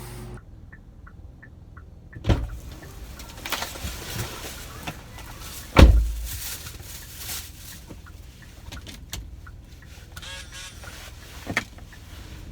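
Knocks and thumps of things being handled in and around a parked car. A short run of light ticks comes first, and the loudest is a single heavy thump near the middle.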